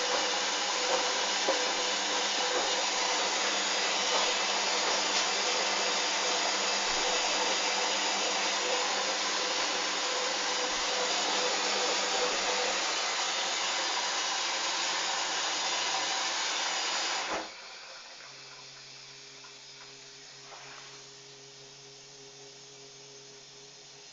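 Hoover Dynamic washing machine filling with water for its rinse: a steady rushing hiss of water entering through the inlet valve, which cuts off suddenly about 17 seconds in, leaving a much quieter steady hum with a few low tones.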